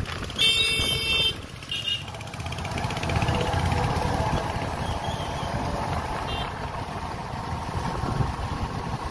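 Vehicle horn honking loudly for about a second just after the start, then again briefly a moment later, over the steady running of motorcycle engines and wind rush while riding.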